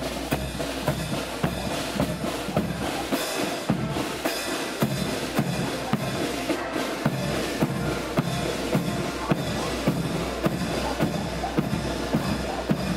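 Marching band playing on the move, led by a bass drum and snare drums keeping a steady march beat.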